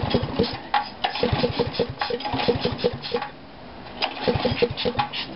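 Small engine running through a homemade GEET fuel reactor being restarted: it fires in a quick, uneven sputter for about three seconds, fades, and sputters again about four seconds in. The owner thinks the mixture is set too lean.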